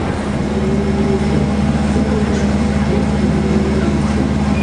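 Carnival midway noise: a steady low mechanical drone from generators and ride machinery, with faint crowd voices beneath it.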